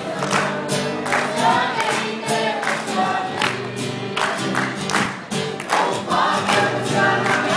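A small choir of adults and children singing a song together.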